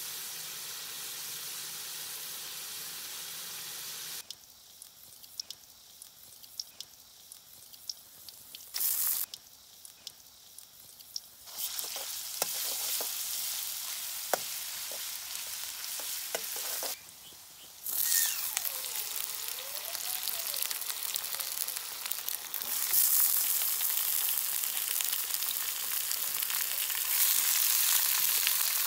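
Food frying in hot oil in a karahi: a steady sizzle with spatula scrapes and clicks, broken up by edits. The sizzle is loudest near the end, as raw chicken pieces sear in the oil.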